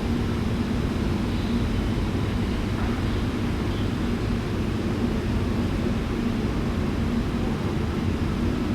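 Steady low rumble of jet aircraft engines at an airport, with a constant low hum and no change in level.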